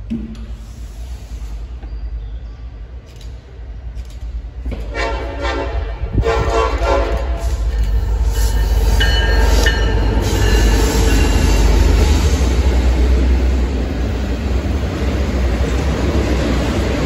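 Norfolk Southern double-stack intermodal freight train led by EMD SD70ACe No. 1072 passing close by. The locomotive horn blows about five seconds in as it approaches. Then the diesel locomotives and the steady rumble and clatter of the container well cars grow loud.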